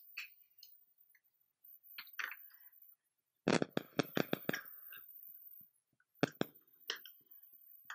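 Small sharp clicks and light knocks as a screwdriver works a brass terminal screw on a plastic switch board and the board is handled, with a quick run of about seven clicks about three and a half seconds in and a few single clicks later.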